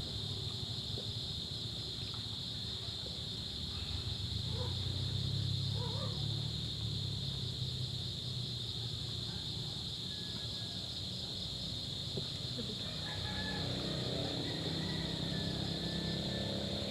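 Steady high-pitched insect drone over a low rumble, with a few short chirps a few seconds in. A low engine hum comes in near the end.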